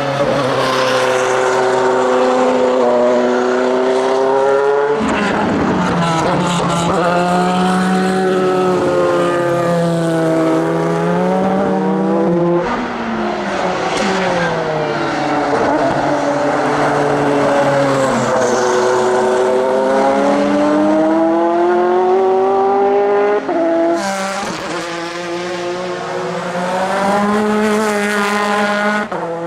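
Audi R8 LMP's twin-turbo V8 racing engine at full speed on track, its pitch climbing and falling again and again as it accelerates through the gears and brakes. There are sharp breaks between gears, and an abrupt change in the sound about 24 seconds in.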